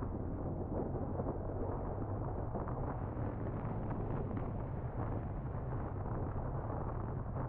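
Steady wind rumble on the camera microphone of a moving motorcycle, with the BMW R1200R's boxer-twin engine running underneath.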